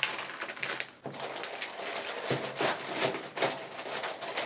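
Plastic soft-bait packets crinkling and rustling as they are handled and slid into a clear plastic storage box, with irregular light clicks and taps.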